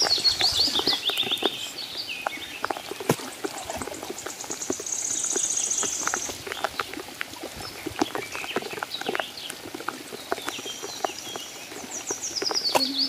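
Bird calls: a quick series of high notes stepping downward at the start and again near the end, with a high buzzing trill in the middle. Under them are scattered small splashes and rain pattering on shallow pond water as hands dig into the mud.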